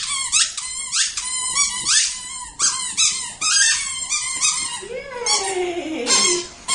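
A dog chewing a squeaky toy, making rapid repeated high squeaks, several a second. The squeaks thin out about five seconds in.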